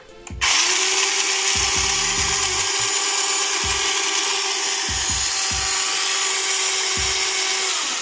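Toy remote-control 4WD monster truck's electric wheel motors and gearboxes whirring as the wheels spin freely in the air, held up off the ground. It starts about half a second in, runs at a steady whine and stops near the end.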